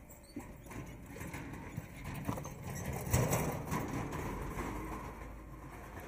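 Donkey-drawn cart passing close on a dirt lane: soft hoofbeats and the cart's knocking and rattling, loudest about three seconds in.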